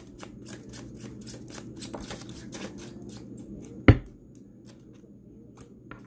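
Tarot cards being shuffled by hand: a quick run of card clicks, about five a second, that stops about four seconds in with one sharp knock, after which only a few faint card sounds follow.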